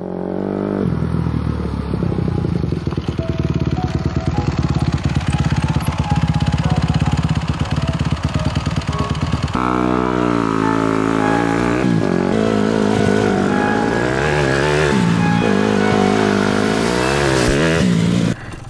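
Dirt bike engine running with a fast, even firing pulse. About halfway in it starts revving up and down again and again, then cuts off sharply near the end.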